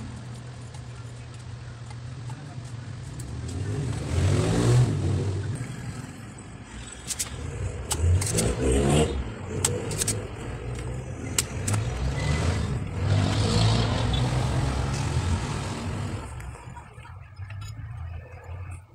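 Motor vehicle engines swelling and fading several times over a steady low hum, with a few sharp clicks in the middle.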